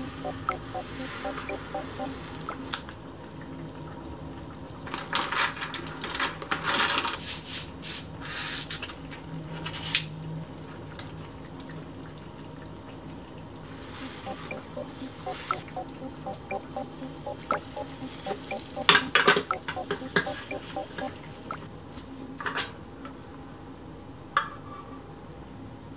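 Scraping and tapping of a silicone spatula and utensils against a rectangular tamagoyaki pan as a rolled omelette is folded and turned, in two spells of clatter with a couple of single knocks near the end, over a steady low hum.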